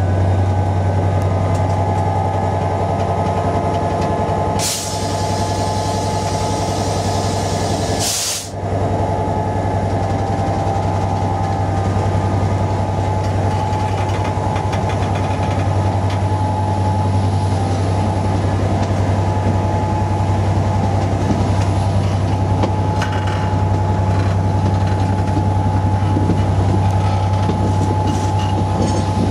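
Class 67 diesel locomotive's two-stroke V12 engine working under load as it hauls the train away, heard close up from just behind the locomotive: a loud steady low drone with a higher steady whine. The sound dips briefly twice, about five and eight seconds in.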